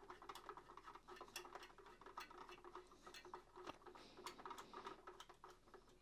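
Faint, irregular clicks and taps of plastic as the front grille of a Makita DCF203 cordless fan is twisted clockwise and locked onto the housing.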